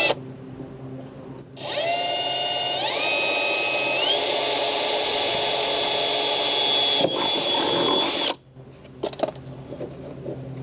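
Milwaukee cordless drill boring a hole through a plastic door panel: a brief spin at the start, then the motor runs for about seven seconds, its whine stepping up in pitch twice as the speed rises, then stops. A few light clicks follow near the end.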